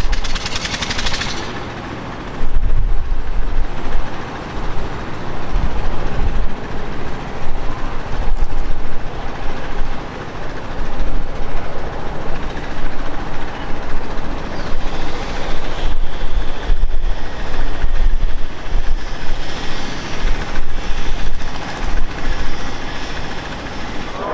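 Jet airliner's engines running loud as it rolls down the runway, a heavy rumble that rises and falls unevenly, with a brighter high whine in the second half.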